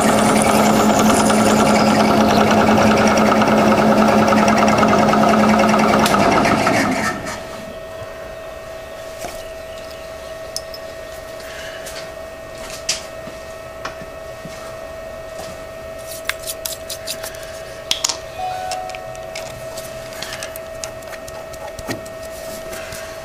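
Milling machine spindle running with a drill bit in a drill chuck, drilling a hole in a steel chuck backing plate, then switched off about seven seconds in and winding down quickly. After that a faint steady hum remains, with light metallic clicks and taps as the drill chuck is handled.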